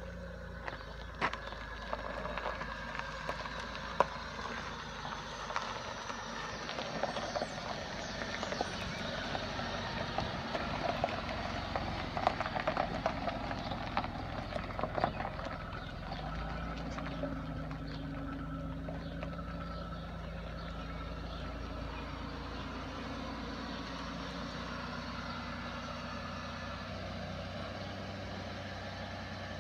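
Car engine running, with many irregular clicks and knocks over the first half; from about halfway it settles into a steady, even running note.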